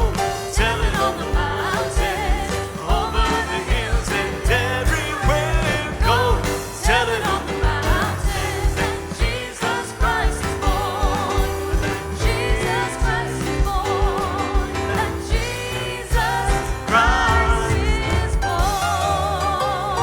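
Live worship band music: drum kit, piano and singers on a gospel Christmas song, the singers holding wavering, wordless vocal lines over a steady drum beat.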